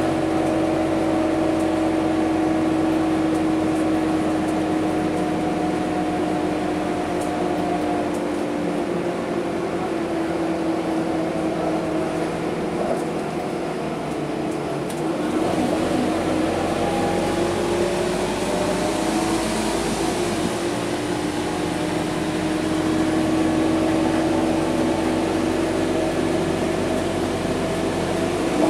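Cabin sound of a Scania K230UB single-deck bus driving: diesel engine and drivetrain running with a steady whine that fades and wavers about halfway, then rises and holds again as the bus picks up.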